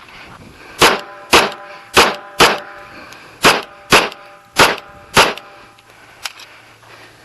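A string of eight rapid pistol shots from a .45 ACP 1911, mostly fired in pairs, with a ringing tone held underneath the shots.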